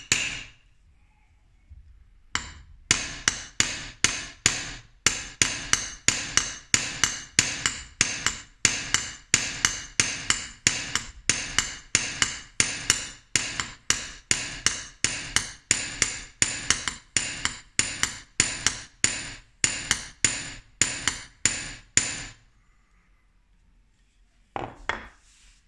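Small hammer tapping a laminated Japanese steel blade against an anvil in quick, even, ringing metallic taps, about three a second: uradashi, tapping out the back of the blade. The tapping pauses for about two seconds at the start and stops near the end, followed by one brief knock.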